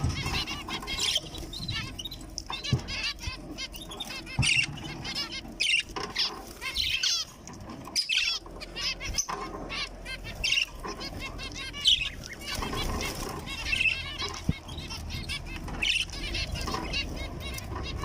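Young zebra finches chirping in a cage: a busy run of short high calls, mixed with quick wing flutters.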